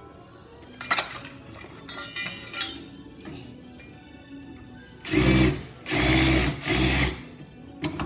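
Ridgid cordless drill run in three short bursts, driving a screw. A couple of sharp knocks come earlier.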